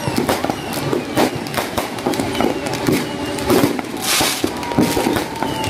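Fireworks and firecrackers going off in rapid, irregular succession: many sharp cracks and bangs, a few short falling whistles, and a loud hissing burst about four seconds in.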